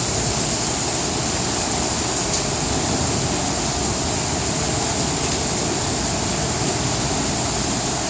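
Heavy rain falling steadily, a dense even hiss of water with no letup.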